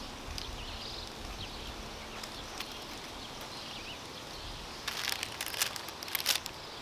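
Quiet outdoor ambience with a few faint bird chirps; about five seconds in, a burst of paper crinkling lasting about a second and a half as paper napkins are handled.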